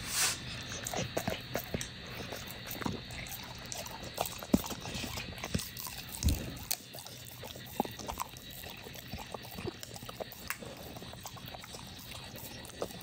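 A pit bull licking and lapping ice cream off a wooden stick: irregular smacks and licks of the tongue and lips, some louder than others, with a louder smack right at the start.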